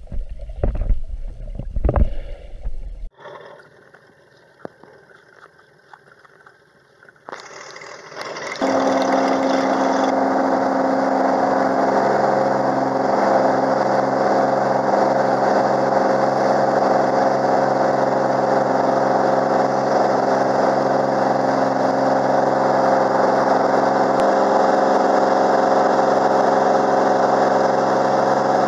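Water sloshing and surging against an underwater camera for the first few seconds. After a short quieter stretch, a Cirrus SR22's engine and propeller come in abruptly at a steady full-power pitch, heard from inside the cockpit through the takeoff roll and climb-out.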